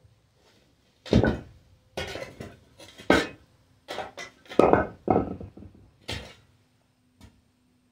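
Long-handled shovel blade scraping and jabbing across a dirt floor: about eight scrapes and knocks in quick succession, spread over some five seconds. The loudest strokes come about a second in and midway.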